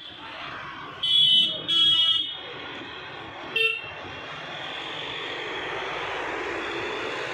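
A vehicle horn honks twice in quick succession about a second in, then gives one short toot, over steady street traffic noise.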